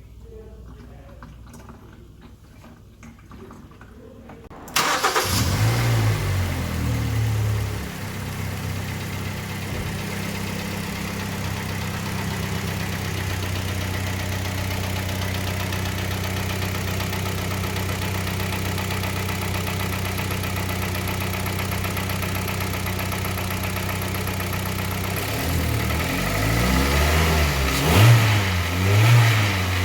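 Kia Sportage 3 petrol engine started about five seconds in, running at a raised idle that settles to a steady idle, then revved a few times near the end. It runs without the dull metallic knock it had before the service: an oil change from 5W-30 to 5W-40 cured it, with a timing chain replacement still planned.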